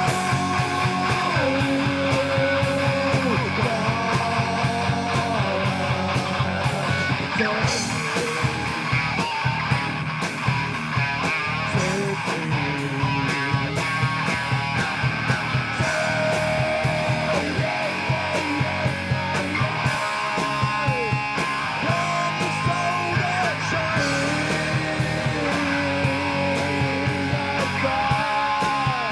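A rock band playing live: electric guitars over bass and a fast steady drum beat, with a held, bending lead line on top.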